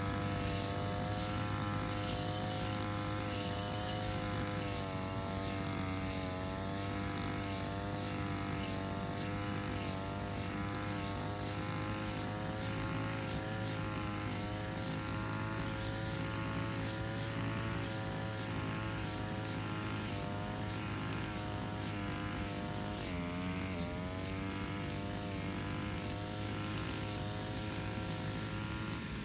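Petrol brush cutter engine running at working speed, its pitch wavering slightly as the cutter is swung through grass. About three-quarters of the way through, the engine note drops briefly and climbs back.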